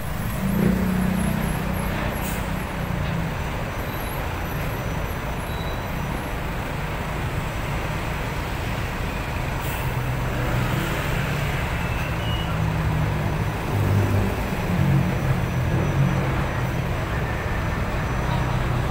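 Heavy road traffic: large trucks and motorcycles passing, engines running with a low, steady drone.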